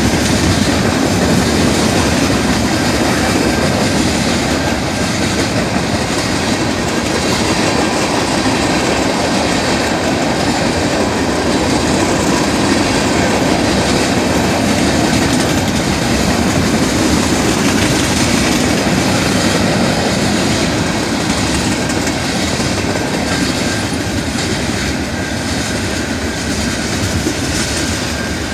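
Train rolling past a railroad grade crossing, a loud, steady noise of rail cars going by that eases slightly near the end.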